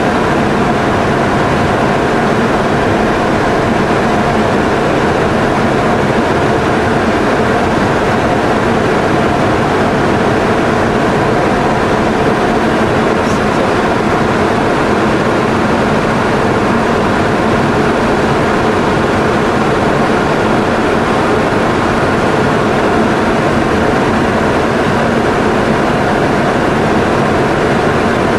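Steady cockpit noise of a Boeing 707 in flight during aerial refueling: an even rush of airflow and engine drone with several constant hum tones, unchanging throughout.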